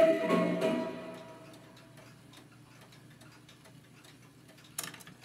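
The last sung notes of a 78 rpm shellac record fade out about a second in. The stylus then ticks faintly and evenly in the run-out groove over surface hiss, and a louder burst of clicking comes near the end.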